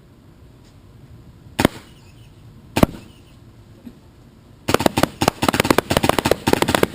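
Planet Eclipse Etha paintball marker firing reballs: two single shots a little over a second apart, then a rapid string of shots from about two-thirds of the way in.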